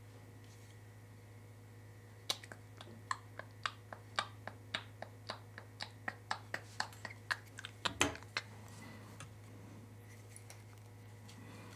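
Quick run of sharp, light clicks, about three a second, ending in a louder clatter about eight seconds in, as hands work a length of heat-shrink tubing onto wiring. A steady low electrical hum runs underneath.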